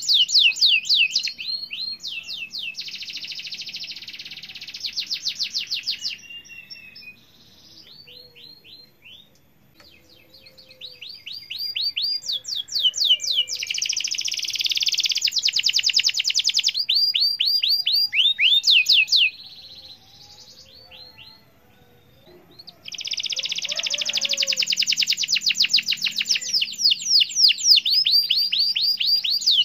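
Domestic canary singing in long phrases of fast repeated high notes and dense rolling trills, breaking off twice for a few seconds.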